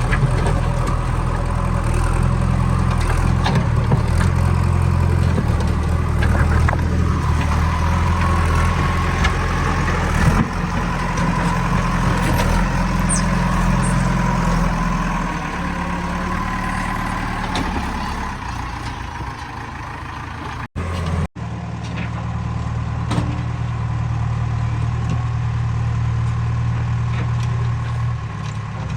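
JCB 3DX backhoe loader's diesel engine running under working load, heavier for the first half, then easing to a steadier, lighter run. The sound drops out twice for an instant about two-thirds of the way through.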